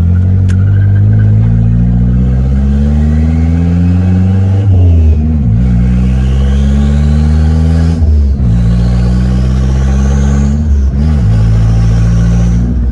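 Turbocharged Nissan Hardbody pickup accelerating through the gears, heard from inside the cab. Engine revs climb and drop at three upshifts, about 5, 8 and 11 seconds in, with a high whistle rising alongside each pull. The freshly installed stage 2 clutch takes each shift.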